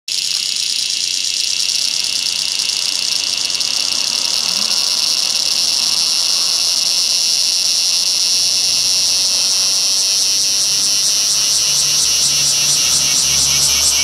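Cicadas singing loudly: a continuous high, shrill buzz that breaks into a rapid pulsing over the last few seconds.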